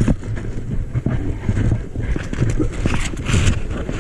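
Wind buffeting the microphone in an uneven low rumble, with scattered clicks and knocks over it.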